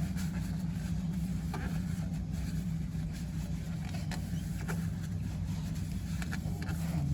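Steady low motor-like hum with a few short, faint clicks of metal tools at irregular moments, as the oil drain plug is being put back in.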